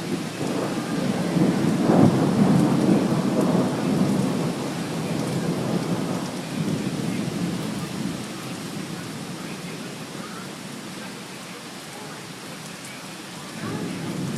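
Thunder rumbling over steady rain: a long rumble swells about two seconds in and slowly fades, leaving the hiss of the rain, and another rumble begins near the end.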